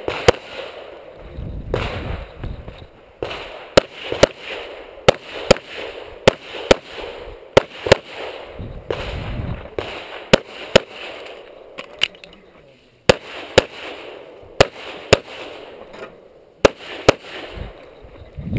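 Semi-automatic pistol firing a fast string of about two dozen shots, many in quick pairs, with short gaps of a second or so between strings.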